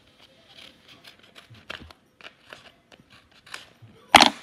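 Handling noise close to the microphone: scattered faint clicks and rustles, then one loud brief rustle about four seconds in.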